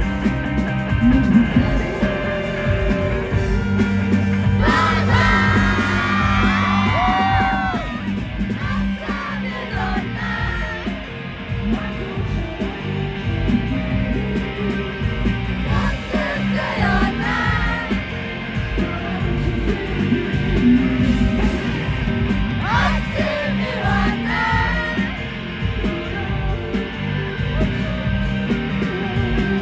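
Rock band playing live, with a male lead vocal singing over it in phrases several seconds long.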